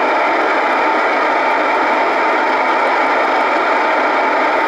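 Steady static hiss from an Icom communications receiver's speaker in FM mode, with no bass or high treble, tuned to the SO-50 satellite's downlink: noise only, no signal from the satellite is coming through.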